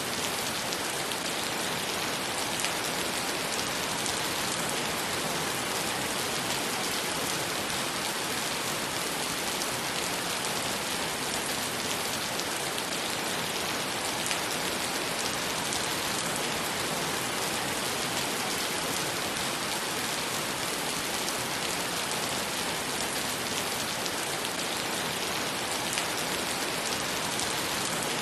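Steady rain falling on wet asphalt and concrete, an even splashing hiss of countless drops hitting the wet ground.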